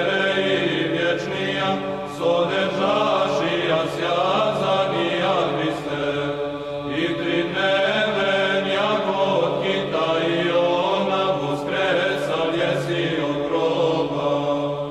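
Orthodox church chant used as theme music: voices sing a winding melody over a steady held low drone.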